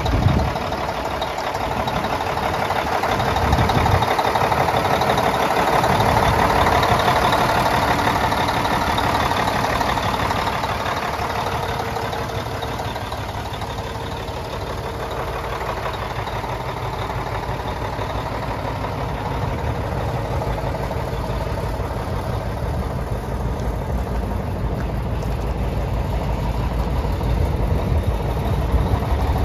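Cummins ISX inline-six diesel in a Kenworth T660 semi tractor idling steadily. It is louder in the first third, eases off a little mid-way and grows louder again near the end.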